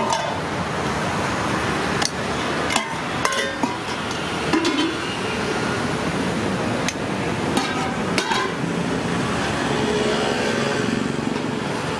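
Steady roadside traffic noise, with scattered sharp clinks and knocks of stainless steel pots, lids and ladles as rice and curry are served.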